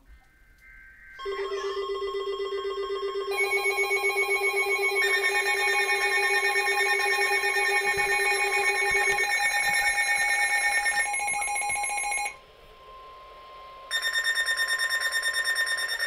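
Several emergency alert devices sounding a tornado warning at once. A steady weather-radio alarm tone starts about a second in and is joined within a few seconds by pulsing, shrill phone alert tones. Most of the tones break off near the end, leaving the steady tone, and the pulsing tones start again just before the end.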